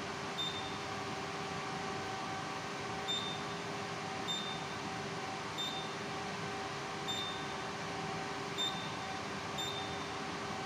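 Simplex 4010 fire alarm control panel keypad beeping as its buttons are pressed: seven short, high beeps at uneven intervals over a steady equipment-room hum.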